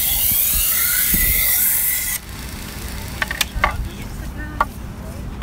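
Chef knife blade ground against the running abrasive belt of an AMK-75 belt sharpener: a loud, steady, high hiss of steel on the belt that stops about two seconds in. After it, the sharpener's motor hum goes on under a few sharp clicks and faint voices.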